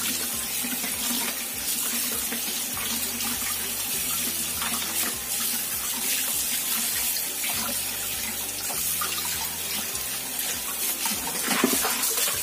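Kitchen tap running steadily while a whole raw chicken is rinsed by hand under the stream in a plastic bowl, water splashing into the bowl and sink. A short louder knock near the end.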